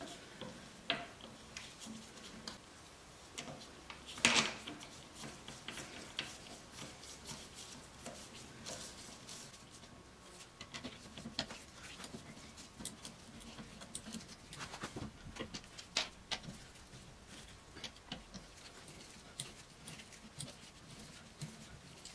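Faint metallic clicks and clinks of wheel bolts being threaded by hand into an alloy wheel's hub, with one louder knock about four seconds in.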